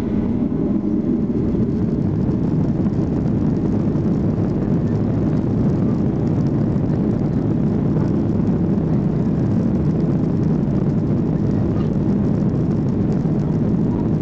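Steady rumble inside the cabin of a Boeing 737-800, its CFM56 jet engines running with a constant low roar and no change in pitch.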